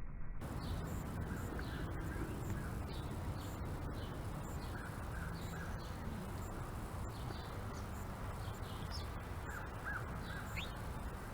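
Birds calling outdoors: short calls, some in quick pairs, scattered over a steady low background rumble.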